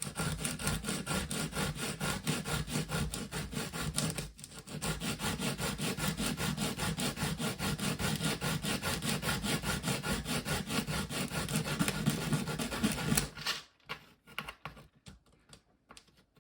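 A small plastic part from the forward/reverse selector of a Makita DTD152 impact driver being rubbed back and forth by hand on sandpaper in quick, even strokes to thin it down so it fits. The strokes pause briefly about four seconds in and stop near the end, leaving a few light clicks.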